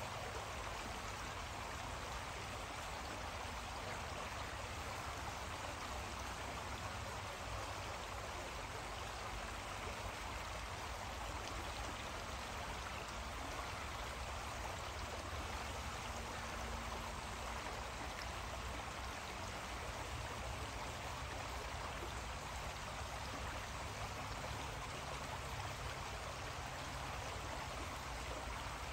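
A creek running steadily, an even, unbroken wash of water noise, with a low steady rumble underneath.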